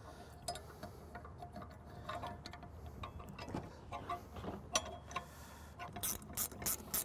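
Small metal clicks and taps as aluminium antenna mounting brackets and their screws are handled and adjusted, then about a second before the end a quick run of sharp clicks, about six a second, from a ratcheting wrench tightening the bracket screws.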